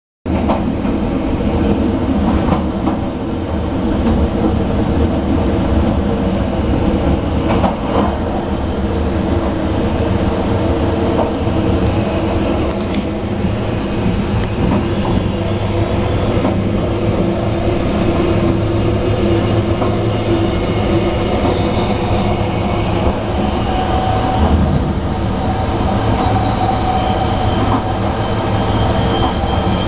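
Diesel engine of a Siemens ER20 'Hercules' (ÖBB class 2016) diesel-electric locomotive running steadily, heard together with the wheel and rail noise of the moving train and a few sharp clicks.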